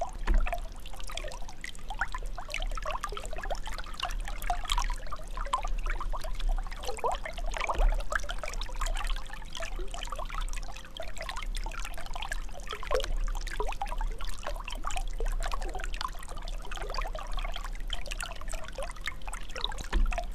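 Water sloshing and trickling as a brown bear swims and moves through it, with a splash just after the start and a low steady rumble underneath.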